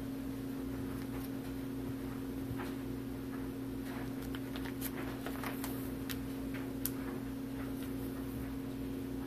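Plastic binder sleeve pages crinkling and clicking as a hand touches and turns them, a few scattered light clicks, over a steady low hum.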